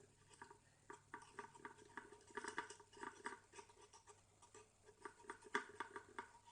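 A thick mix of shampoo and liquid soap being stirred in a small container: faint, irregular clicking and squelching of the stirrer against the container, a few strokes a second.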